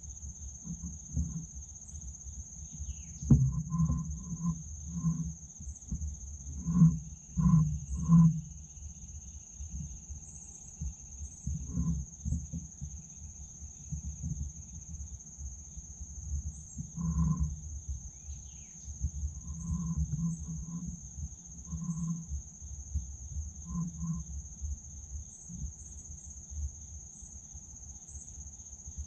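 Insects shrilling in one steady, high-pitched drone. Low thumps and rumbles come and go over it, loudest about three to eight seconds in.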